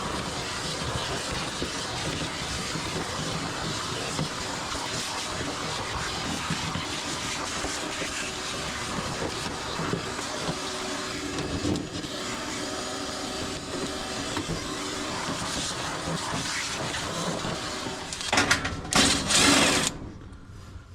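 A steady machine noise with a hiss, then a few louder irregular bursts of noise near the end.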